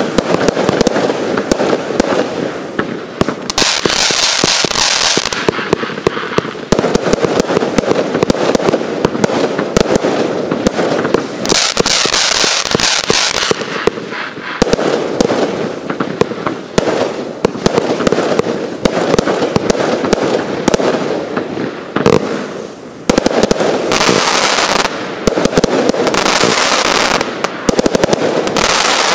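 90-shot fireworks fan compound battery firing, a rapid, continuous stream of shots and bursting stars. Several stretches of dense high hiss are mixed in, and there is a short lull about three-quarters of the way through.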